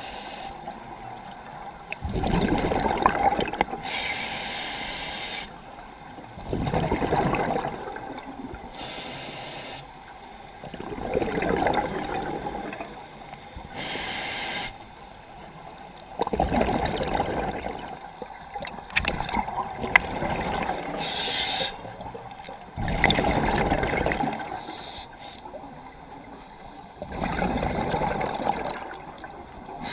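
Scuba diver breathing through a regulator underwater: a short hiss on each inhale, then a rush of exhaled bubbles, about six breaths in a slow, even rhythm.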